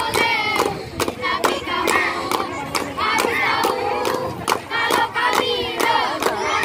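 Many voices shouting and chanting together, over frequent sharp clap-like smacks, several a second.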